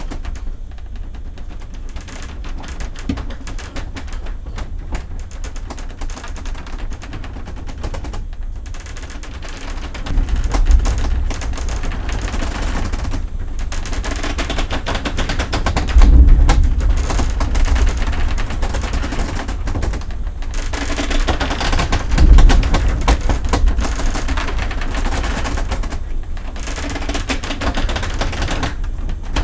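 Inside a cabin of the Shin Nihonkai Ferry's high-speed ship Suzuran in rough seas: a steady low rumble of the ship's engines and hull, overlaid with fast, clattering rattles of loose cabin fittings. The rumble surges heavily three times, about ten, sixteen and twenty-two seconds in.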